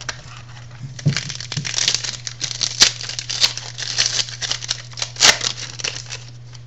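Crinkling of a trading card pack's plastic-foil wrapper being torn open and handled, with a few sharp snaps along the way, over a steady low electrical hum.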